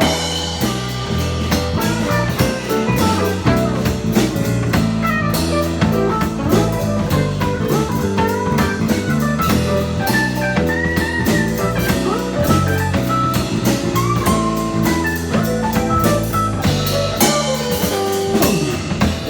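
Instrumental break of a band song: a guitar plays a lead melody with pitch bends over drum kit and bass, with no singing.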